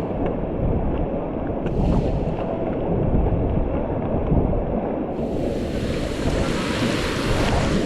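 Rushing river water around a raft, with wind buffeting the microphone as a low rumble. About five seconds in the water noise turns to a brighter, louder hiss.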